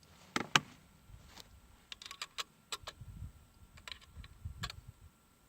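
Small metallic clicks and clatter of a rifle and its cartridges being handled ahead of firing, with two sharper clicks about half a second in, then a run of lighter clicks. No shot is fired.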